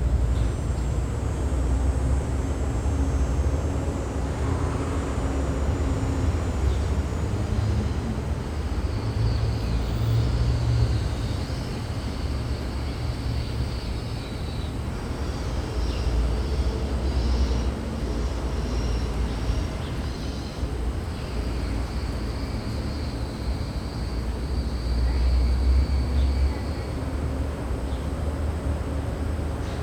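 City alley ambience: a steady low rumble of distant traffic, with faint high-pitched sounds coming and going over it.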